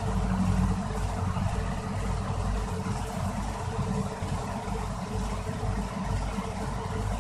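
A steady low rumbling hum that runs without a break.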